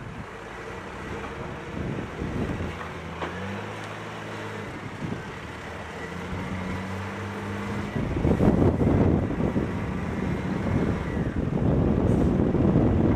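Volvo L70D wheel loader's diesel engine running, its pitch stepping up twice as it drives and turns toward the sludge pile, with a faint high whine for a few seconds. About eight seconds in, a louder rough rushing noise takes over as the loader drives its bucket into the pile.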